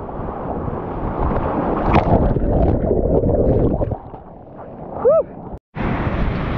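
Kayak ploughing through breaking surf: foaming whitewater rushing around the hull and paddle, with wind on the microphone and a sharper splash about two seconds in. It eases off about four seconds in, then cuts abruptly to a steady wind buffet on the microphone.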